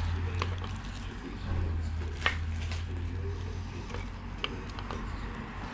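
A few light, sharp taps and some plastic rustling as a piston in a ring compressor is worked down into an engine cylinder, over a steady low hum.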